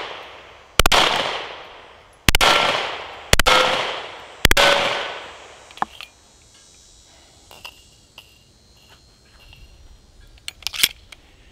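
Sig Sauer P320 X5 9mm pistol fired four times, a second or so apart, each shot trailing off in a long echo. Then faint clicks of the pistol being handled and its magazine pulled from the grip.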